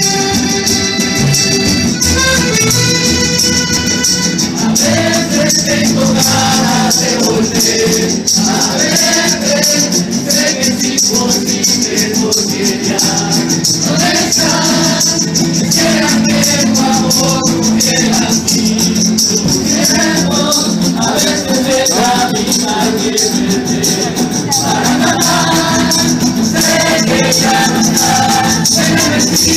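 Estudiantina-style street group performing a song: several voices singing together over instrumental backing, with a steady shaken-percussion jingle throughout. The first few seconds are instrumental, and the singing comes in about four seconds in.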